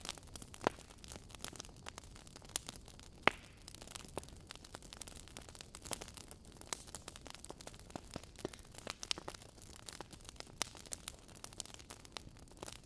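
Wood fire crackling in a fireplace: irregular sharp pops and snaps from the burning logs over a soft steady hiss, with one louder pop about three seconds in.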